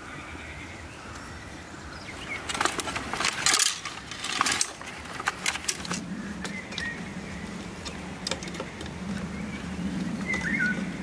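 Dry cane stalks clattering and knocking against each other as they are handled and set into a fence, a burst of sharp clicks and rattles in the middle. A bird chirps briefly near the end.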